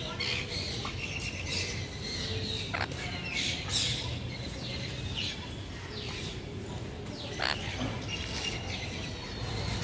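Many small cage birds chirping together in an aviary: a dense, overlapping flurry of short high chirps and quick falling whistles, with a couple of sharper squawks standing out, over a steady low hum.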